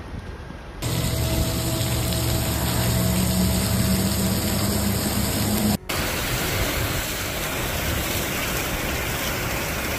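Heavy storm rain and wind making a steady wide hiss, in two stretches split by a sudden cut about six seconds in. The first stretch, starting about a second in, has a steady low hum under the hiss.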